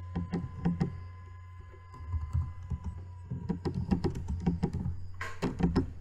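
Typing on a computer keyboard: a short run of key clicks near the start, then a longer, faster run in the second half, over a steady low hum.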